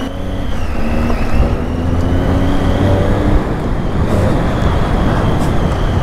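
Triumph Tiger 800's three-cylinder engine pulling steadily as the motorcycle rides a gravel track, its note rising slightly over the first three seconds. A steady rush of wind and tyre noise runs under it.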